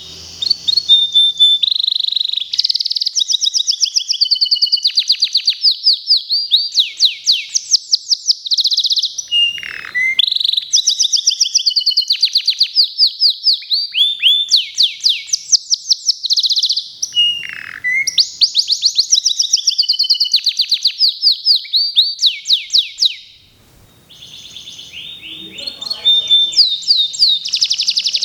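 Local canary singing almost without a break: long, fast trills and rolls of high repeated notes, with a short pause about 24 seconds in.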